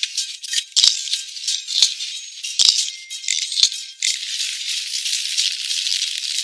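Background music carried by a high rattling shaker-type percussion part: scattered shakes at first, then a steady rattle from about four seconds in.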